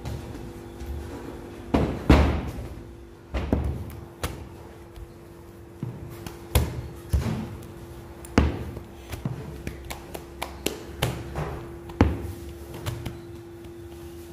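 Irregular thuds and knocks of bakery work, a dozen or so over a few seconds, the loudest about two seconds in and near the end, over a steady machine hum.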